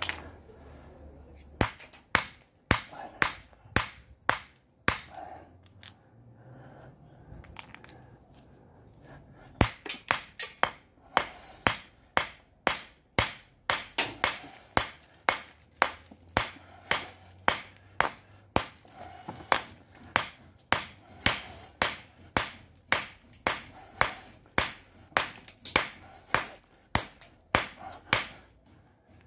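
A 24-ounce steel ball-peen hammer striking a quartzite boulder with sharp cracking blows, spalling shards off it. There are a few scattered blows, a pause of several seconds, then a steady run of about two blows a second.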